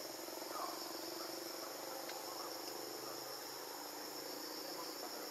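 Steady insect chorus, a continuous high-pitched drone of crickets or cicadas, with a few faint short chirps in the first couple of seconds.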